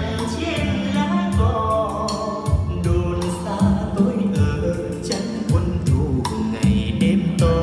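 A song playing: a singing voice over bass and a regular drum beat.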